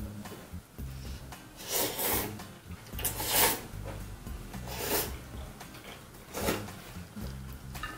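Noodles being slurped from a hot, spicy beef soup: four slurps, the longest and loudest about three seconds in. Quiet background music with a low bass line runs underneath.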